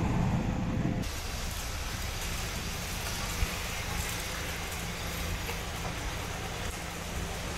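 A heavy vehicle engine runs steadily under an even hiss of wind on the microphone. The sound changes abruptly about a second in, and there is one short click near the middle.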